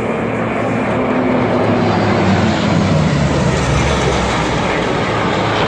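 Aircraft engine noise from a plane flying past, growing a little louder over the first couple of seconds, with low tones sliding down in pitch.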